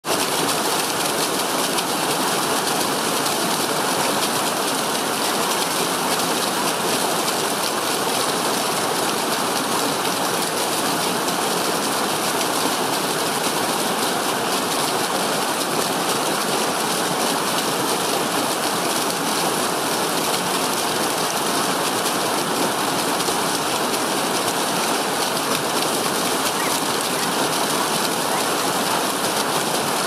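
Small fast stream cascading over rocks in a short waterfall: a steady, unbroken rush of falling water.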